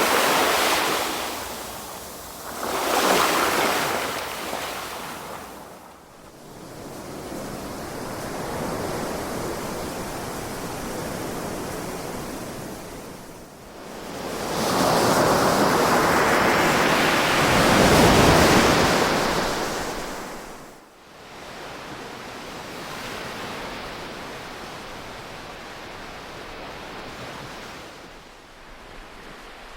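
Ocean waves breaking and washing up in a series of surges: two short ones in the first few seconds, then the biggest and longest from about fifteen to twenty seconds in, with softer wash between.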